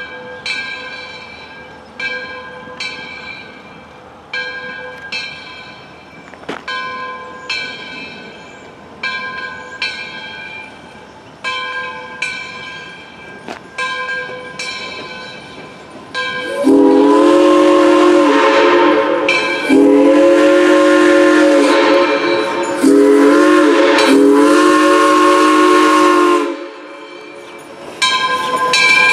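Steam locomotive bell ringing steadily, about one stroke a second. Then the locomotive's chime steam whistle blows four loud blasts, long, long, short, long: the grade-crossing signal.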